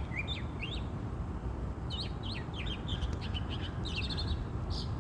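A songbird singing: quick runs of short, sharp chirps that sweep up and down, in several bursts with short gaps, over a steady low rumble.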